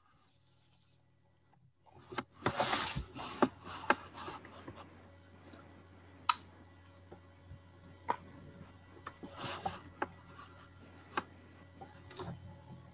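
Rustling handling noise and about a dozen single sharp clicks of a computer mouse being worked, the mouse giving trouble; they start about two seconds in, with the rustling loudest over the next few seconds.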